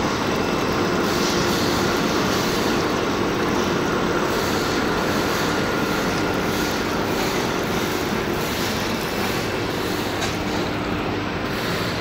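Filament extrusion line running: a steady machine hum with a few constant tones over a wide, even noise.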